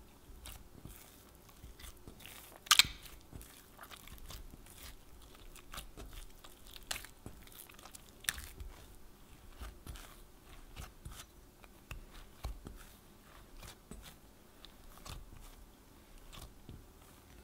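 Hands squeezing and kneading soft bread dough in a glass bowl, working olive oil into it: an irregular run of short sticky clicks and slaps, one much louder than the rest about three seconds in.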